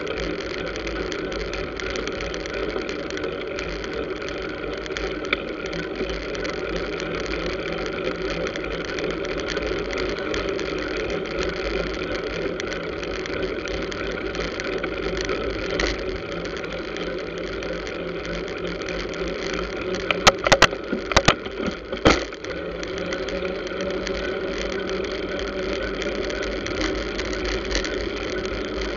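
Steady hum of motor scooter and car traffic with road noise, heard from among the traffic while riding. A few sharp knocks come close together about twenty seconds in.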